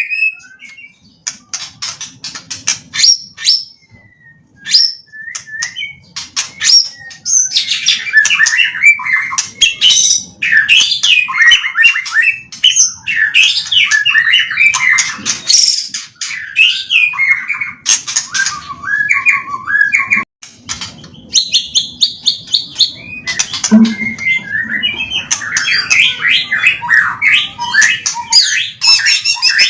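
Songbird singing a long, varied song of fast trills, sweeping whistles and clicking notes, the kind of phrase-rich repertoire that keepers play to teach young birds; it pauses briefly a few times.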